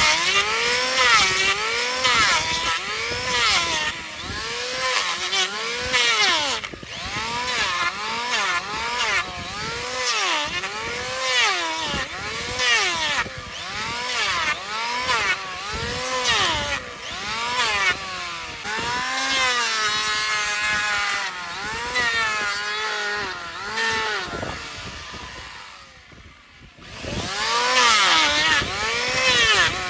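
Electric hoof-trimming machine cutting into a mule's thick, overgrown hoof horn. The motor's whine sags in pitch and recovers with each pass, about once a second. Near the end it briefly dies down almost to nothing, then bites in again.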